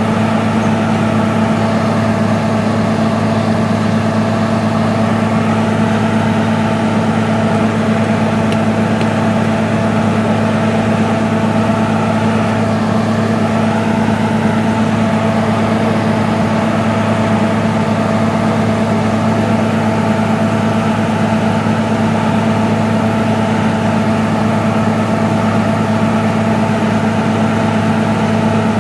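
Water-well drilling rig running steadily as it drills a borehole: a loud, even engine drone at a constant pitch, with no change throughout.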